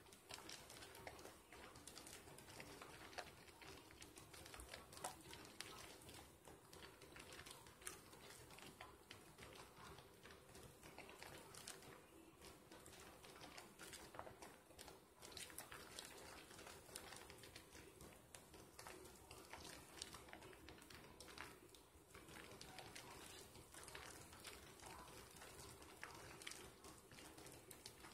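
Faint, wet squishing and crackling of soapy hands rubbing and squeezing a soap sliver into thick lather, a steady stream of tiny clicks.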